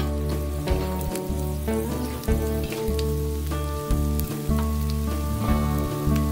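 Instrumental background music with steady bass notes changing every second or so, over the sizzle of petai beans and chillies stir-frying in a steel wok. Light scrapes and taps of a metal spatula against the wok.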